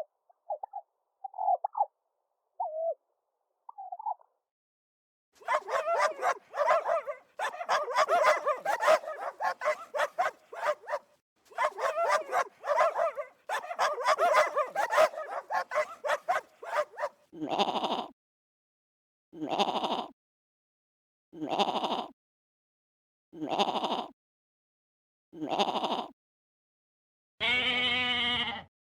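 A series of animal calls. First come a few short pitched hoots. Then comes a long stretch of dense, busy chattering. After that a call repeats about every two seconds, and a longer pitched call comes near the end.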